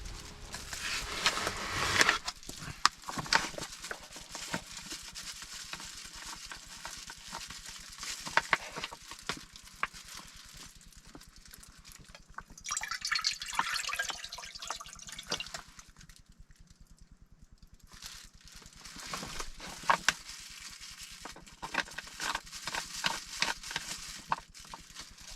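Food sizzling and crackling as it cooks, with scattered sharp clicks; it dies down for a couple of seconds past the middle before picking up again.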